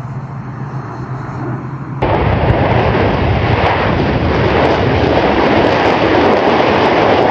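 Jet noise from a Panavia Tornado's twin RB199 turbofan engines at high power as the jet rolls along the runway, starting abruptly and loud about two seconds in. Before it comes a quieter, distant jet drone with a steady low hum.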